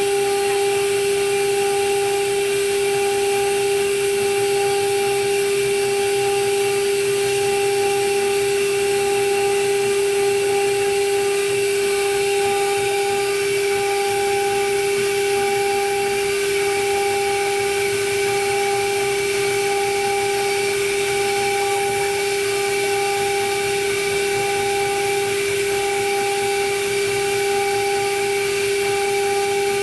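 CNC router spindle running steadily with a high, even whine, a fainter higher tone pulsing in a slow regular rhythm over it.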